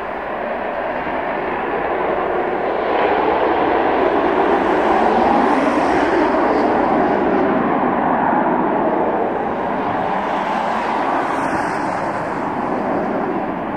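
Eurofighter Typhoon's twin EJ200 jet engines at high power as the jet climbs away after takeoff: a loud, steady jet noise that builds over the first few seconds and eases slightly toward the end.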